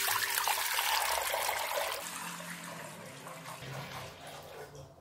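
Water poured from a glass bowl into an empty granite-coated stockpot, splashing onto the pot's bottom. The pour is loudest at first and tapers off over the next few seconds as the bowl empties.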